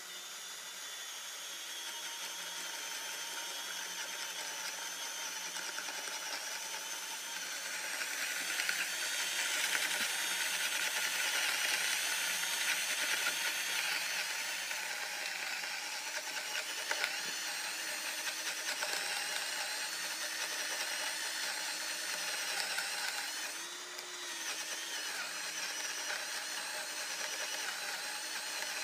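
Festool CXS compact 12-volt cordless drill driver with its right-angle head, boring into wood with a spade bit. The motor and gears give a continuous whine as the bit cuts. It gets louder for several seconds around the middle and dips briefly about three-quarters through.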